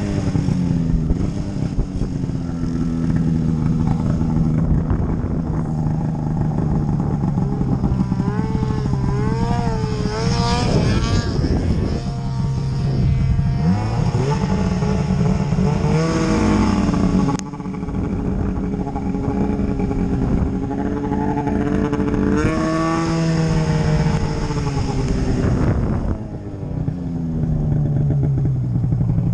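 Snowmobile engine running under changing throttle, its pitch repeatedly rising and falling. There are quick wavering blips about ten seconds in, longer climbs later on, and a brief drop with a click partway through.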